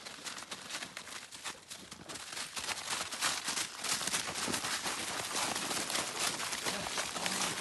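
Footsteps crunching through a thin layer of snow over dead leaves, a steady run of rough crunches and rustles that gets louder and busier after about two seconds, as dogs move in close around the walker.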